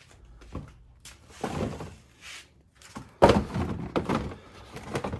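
Rustling and handling noises, then a sudden heavy thunk about three seconds in, followed by more clatter.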